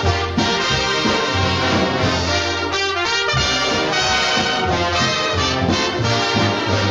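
Brass-led studio orchestra playing a cartoon title-card theme, with trumpets and trombones prominent.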